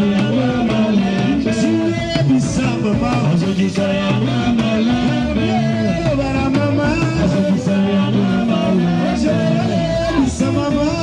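Congolese band music: several singers singing together over a band with drums and guitar.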